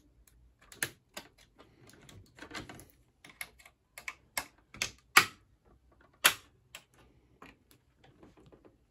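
Irregular clicks and knocks of a washing machine's plastic door-frame parts and retaining clips being worked apart by hand, with two louder clicks about five and six seconds in.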